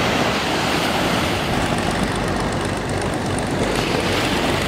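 Small waves breaking and washing up a sandy beach: a steady rushing noise.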